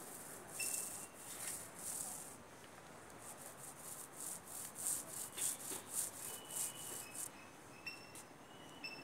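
Long-handled paint roller swishing with wet paint in back-and-forth strokes, a few slow ones first, then quicker at about three a second, stopping about seven seconds in. Brief high chirps sound now and then.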